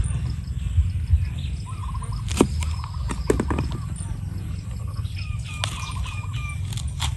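Kitchen knife chopping green chilies on a thick wooden chopping board: a few sharp knocks of the blade on the wood, about two and a half to three and a half seconds in. Short repeated animal calls come in twice over a steady low rumble.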